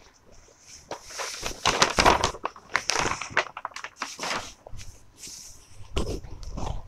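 Silk saree rustling and swishing as it is unfolded and lifted up, with crinkling of brown paper packaging, in irregular bursts and a few dull bumps near the end.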